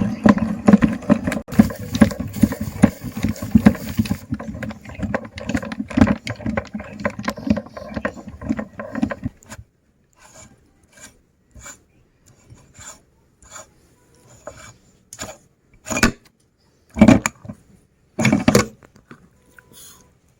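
Meat grinder running with a steady motor hum and rough grinding and scraping as ice cream is forced through; it cuts off about ten seconds in. After that come a series of short separate knocks and scrapes, three of them louder near the end.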